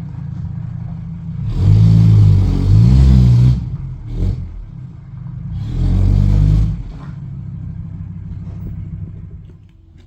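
Mercedes-Benz W123 300D's naturally aspirated five-cylinder diesel running on open exhaust, with only the first section of the exhaust left on. It is revved hard twice, with a short blip between, and settles back to idle before fading near the end.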